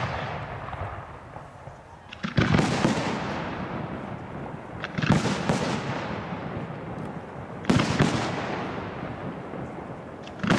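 Aerial firework shells (ball shells) bursting high overhead. There are three groups of two or three sharp bangs about two and a half seconds apart, and another begins at the very end. Each group trails off in a long rolling echo.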